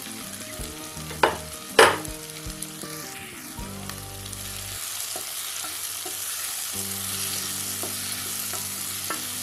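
Chopped green bell pepper frying in oil in a non-stick pan with onion and tomato, a steady sizzle as a spatula stirs it round. Two sharp knocks of the spatula against the pan come about a second in, with a few light ticks later.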